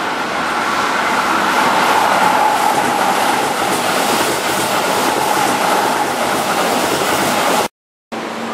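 Keihan 13000 series electric commuter train running past at close range on curved track: a steady rumble of wheels on rail with a sustained high whine over it. Near the end the sound cuts out for a moment and gives way to a lower steady hum.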